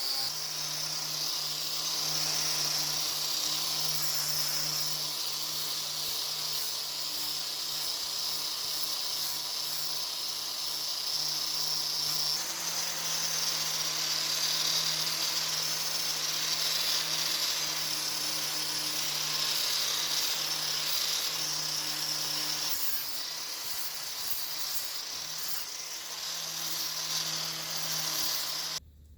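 A small electric power tool running steadily, a constant motor hum under a grinding hiss; it stops abruptly near the end.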